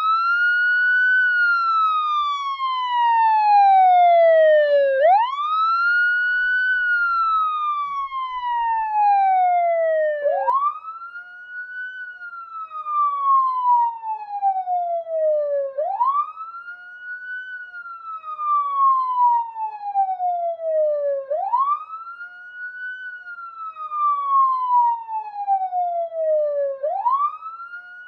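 Police siren on a slow wail: each cycle climbs quickly in pitch for about a second, then falls slowly for about four seconds, repeating roughly every five and a half seconds. The first two cycles are louder than the rest.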